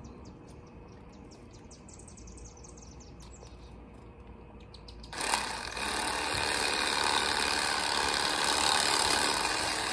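A knife cutting through a bluegill on a plastic cutting board, faint quick scraping strokes at about three a second. About five seconds in, a loud steady rushing noise starts abruptly and covers them.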